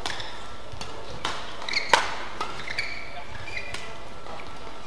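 Badminton rackets striking the shuttlecock back and forth in a rally: several sharp cracks, the loudest about two seconds in, with short high squeaks of court shoes on the floor between hits.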